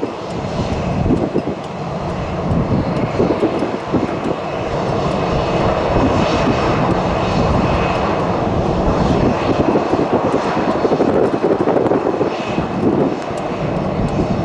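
Boeing 737-700's CFM56-7B jet engines running loud, a dense rumble with a faint high whine, growing louder over the first half and then holding.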